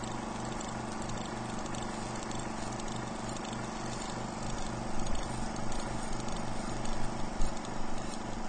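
Outro music: the intro of a track with a steady pulsing bass note and a rhythmic clicking beat, building slightly about halfway through.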